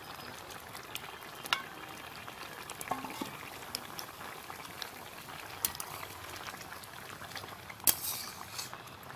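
Bottle gourd and fish curry boiling hard in an uncovered wok, a steady bubbling with scattered small pops. About eight seconds in, a spatula knocks against the wok and stirs through the curry.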